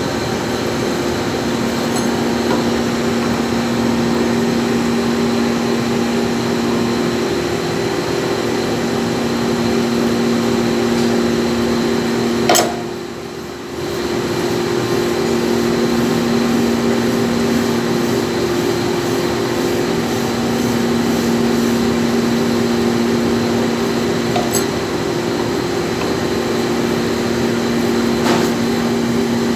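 1960s Snow grinding machine running with a steady hum. A sharp click comes about twelve seconds in, followed by a brief drop in level, and another click comes near the end.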